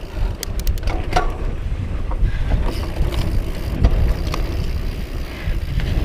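Wind buffeting the microphone over the steady rumble of a Specialized Rhyme FSR mountain bike's plus-size tyres rolling on a dirt and sand trail, with a quick run of sharp clicks about half a second in and a few scattered knocks later.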